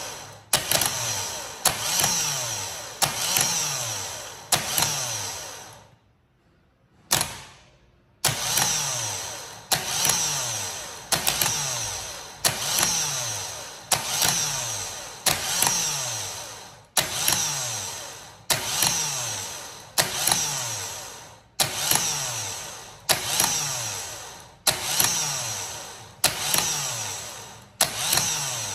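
A car starter motor on the bench, a Vectra's, is energized over and over by a jumper lead touched to its terminal, about once a second. Each time it starts with a sharp click and spins with a whine that falls in pitch and fades. Around six seconds in there is a pause with one short burst. This is a test for an intermittent bad contact at a loose terminal screw.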